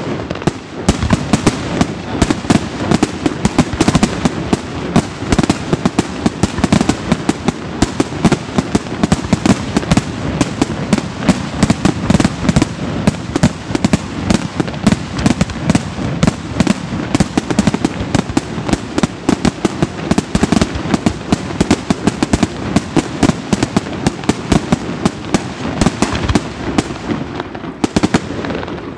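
Aerial fireworks display: a dense, rapid barrage of shell bursts and bangs, many each second, dying away near the end.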